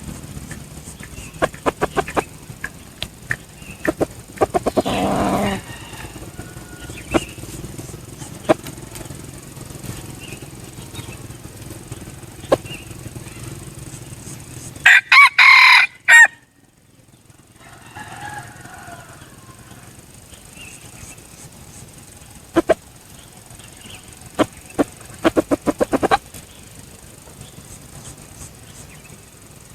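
Red junglefowl roosters crowing at intervals: a call about five seconds in, a very loud close crow about fifteen seconds in and a fainter answering crow just after, among scattered sharp clicks and a quick run of pulses near the end.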